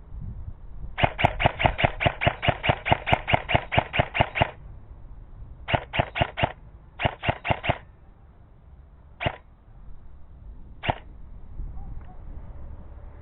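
Airsoft gun firing BBs: a rapid run of about twenty shots at roughly six a second, then two short bursts of four or five, then two single shots.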